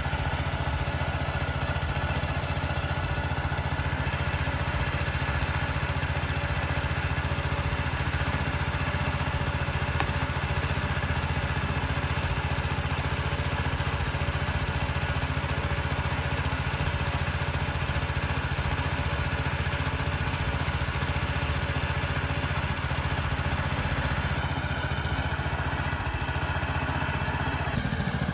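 Small engine driving a water pump, running steadily at an even speed as it drains a pond.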